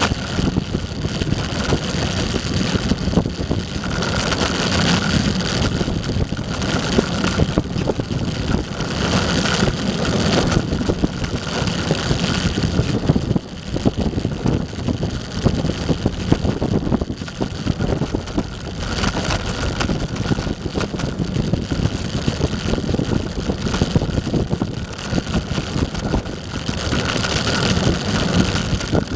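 Eglide electric skateboard rolling along pavement, heard from a camera on its deck: a steady rumble of the wheels on asphalt, with a brief dip about halfway through.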